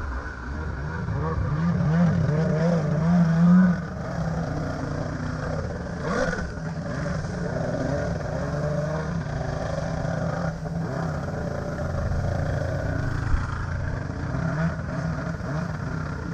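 Stand-up jet ski engine running at speed with the throttle worked up and down: it revs hardest in the first few seconds, eases off, then holds a steady run, with water spray and chop against the hull.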